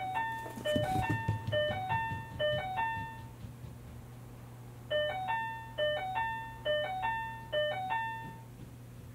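Electronic two-tone door chime ringing 'ping-pong' four times in a row, then four more times after a pause of about a second and a half. Soft thumps about a second in as the cat scrambles off its cushion and runs.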